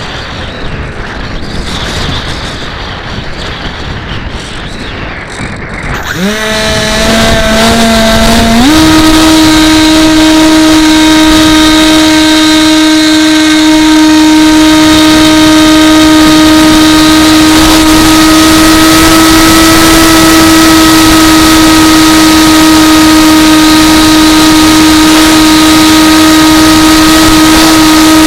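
The electric motor and propeller of an AXN Floater remote-control plane start to whine about six seconds in, rise in pitch in two quick steps, then hold a steady high-pitched drone at high throttle. Before that there is a rushing noise.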